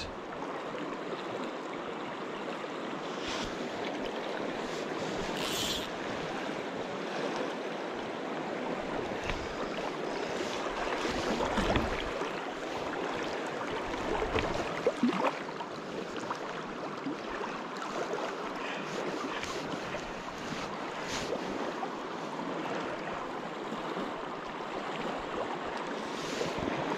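Steady rush of a river flowing over a riffle.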